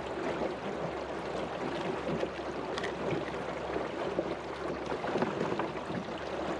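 Water lapping and trickling around a small fishing boat, with a few light clicks from wet fishing line being wound by hand onto a foam pool-noodle jug float.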